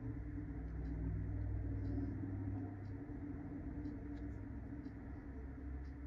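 Faint, light, irregular ticks as a Uni Kuru Toga mechanical pencil is handled and turned in the fingers, over a steady low background hum.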